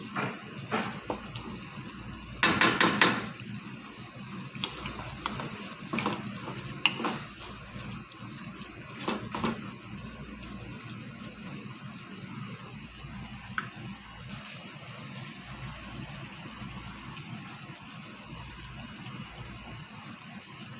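Wooden spatula stirring and knocking against a non-stick wok full of tomato and minced chicken sauce, with a quick run of loud knocks about two and a half seconds in and scattered strokes after. The stirring stops about halfway and the sauce keeps simmering with a steady hiss.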